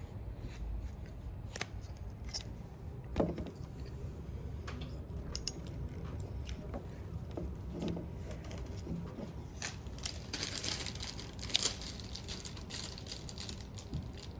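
Handling noise: scattered light clicks and rustles of objects being moved about, with a sharper knock about three seconds in and another near the end, over a low room hum.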